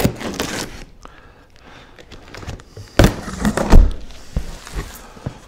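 A cardboard box being opened: a pocket knife slitting the packing tape, then the cardboard flaps pulled open with scraping and rustling and a few thuds, the loudest a little before four seconds in.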